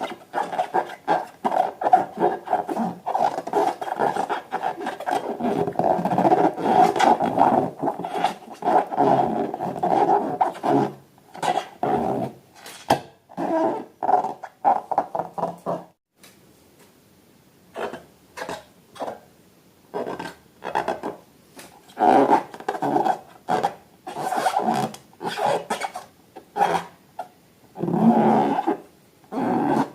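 Rubber balloons being rubbed and squeezed by hand, giving rapid rubbing squeaks and groans. The squeaks are continuous for about the first half, then come in short separate bursts with pauses between them.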